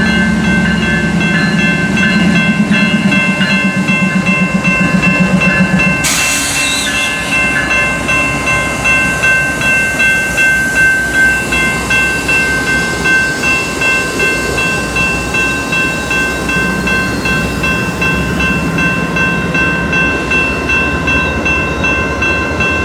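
Amtrak Auto Train rolling slowly in past the crossing, its cars clicking over the rail joints in a steady rhythm, with steady high ringing tones throughout. A low hum fills the first few seconds, and a short hiss comes about six seconds in.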